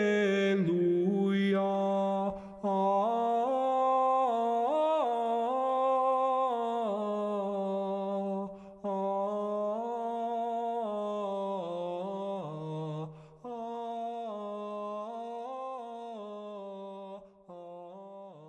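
Gregorian chant sung a cappella: one unaccompanied melodic line, drawn out and moving in small steps, broken by a few short pauses for breath and fading toward the end.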